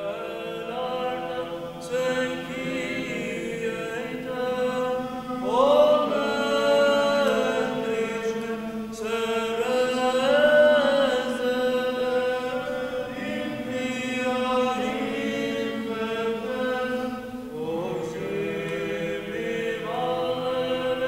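A group of men singing Serbian Orthodox liturgical chant a cappella, in long held phrases that glide between notes.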